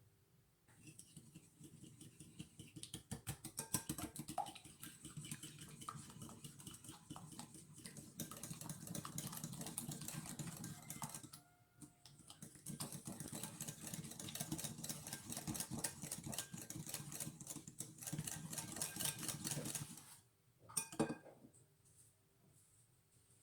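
Eggs and sugar being whisked by hand in a bowl: a fast run of clicks as the whisk strikes the bowl, stopping briefly about halfway and ending with a short flurry near the end.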